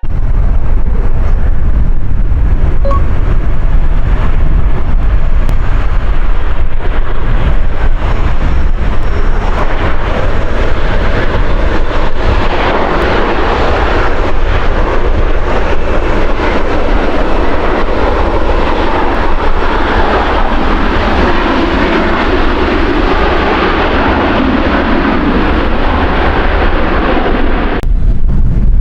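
Qantas Boeing 737 jet engines on a landing approach, buried in heavy wind buffeting on the microphone. The jet noise builds from about twelve seconds in and stops abruptly near the end, while the low wind rumble carries on.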